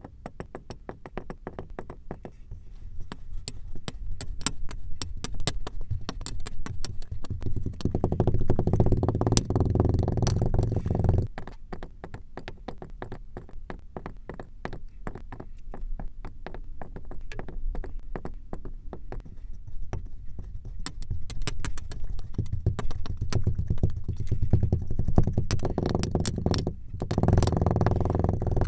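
Kinetic sand crunching as it is worked, a dense run of fine crackles over a low rumble. It swells, breaks off suddenly about eleven seconds in, then builds again, louder near the end.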